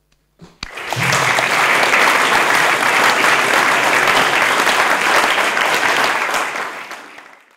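Audience applauding: the clapping starts about half a second in, builds quickly to a steady level, and dies away near the end.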